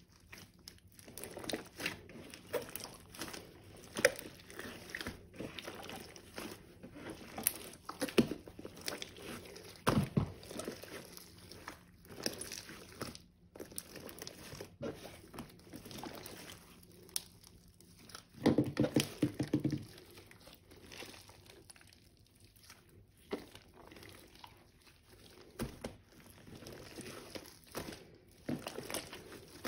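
A large mass of slime being kneaded and stretched by hand, giving a run of small crackling clicks and air pops, louder for a second or so about two-thirds of the way in.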